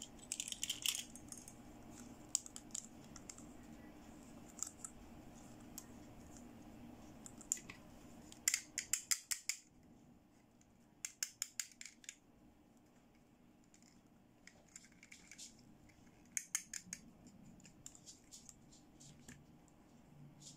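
Small hard-plastic toy accessories, among them a toy hair-styling tool, clicking and clattering as they are handled. There are scattered single clicks and a few quick runs of rapid clicks.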